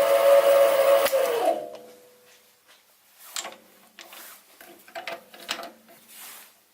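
Sieg SC3 mini-lathe running with a steady high whine, switched off with a click about a second in and winding down with falling pitch. Then a few light clicks and scrapes of handling.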